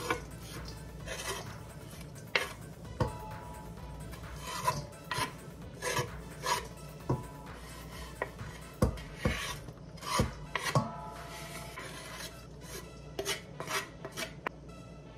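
Wooden spatula scraping chopped vegetables across a wooden cutting board and into a stainless steel mixing bowl: a series of irregular short scrapes and knocks, a few of them leaving the bowl ringing briefly.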